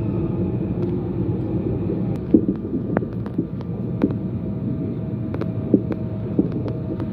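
Electric passenger train running, heard from inside: a steady rumble with a faint steady hum. From about two seconds in, a string of sharp, irregular clacks comes from the wheels on the track joints.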